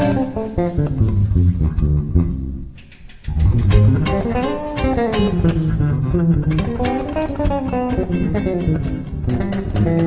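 Live instrumental music led by an electric bass guitar playing fast fingered runs; the notes climb and fall in arcs. The playing thins out briefly about three seconds in, then picks up again.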